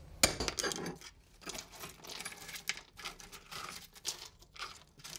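Broken terracotta tile shards clinking and scraping against the hearth as the pieces are worked loose with a cold chisel: light, irregular taps and clinks.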